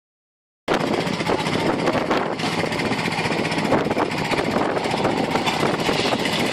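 Loud, rough aircraft engine noise that starts abruptly after about half a second of silence and runs on steadily.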